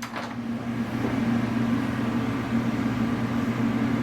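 A steady low electrical hum with a rushing noise over it, like an appliance or fan motor running. It switches on right at the start.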